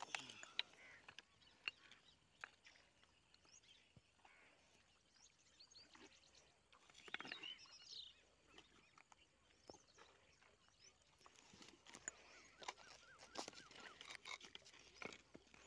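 Faint handling sounds: a plastic bag with a large wallago catfish inside rustling, loudest about seven seconds in, with scattered clicks of sandals on loose stones. Faint bird chirps in the background.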